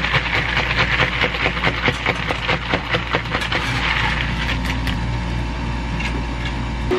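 Ice cubes clinking against each other and a plastic cup as a carbonated ade is stirred with a straw, over the hiss of fizzing soda. The clinking stops about four seconds in, leaving the fizz, and soda is poured over the ice near the end.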